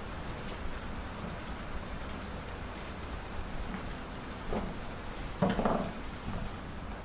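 Steady rain falling, an even hiss throughout, with a couple of dull knocks about two-thirds of the way in, the second one the loudest.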